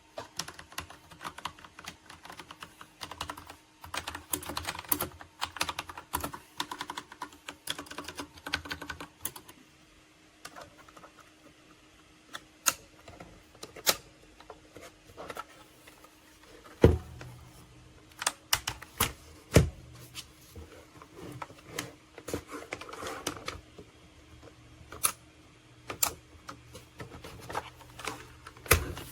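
Typing on a MageGee 75% mechanical keyboard with red linear switches: a fast, dense run of keystrokes for about the first ten seconds, then slower, scattered key presses with some sharper, louder clacks.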